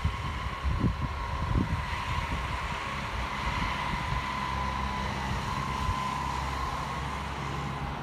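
Wind buffeting the microphone, gusty in the first couple of seconds and then steadier, over a steady high whine from the Midland Pullman HST approaching in the distance.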